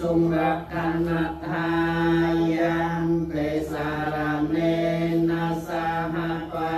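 Khmer Buddhist monks chanting the Pali paritta together, reciting on one steady low pitch with syllables flowing in an even stream.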